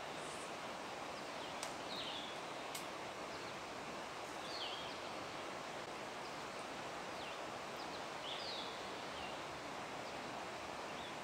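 Steady outdoor background hiss by a wooded lake, with a small bird giving short high chirps every few seconds. There are two faint ticks about two seconds in.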